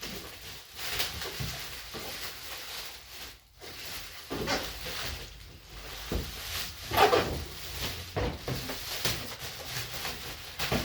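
Irregular rustling and handling noises of packaging and luggage being unwrapped, with a louder rustle about seven seconds in.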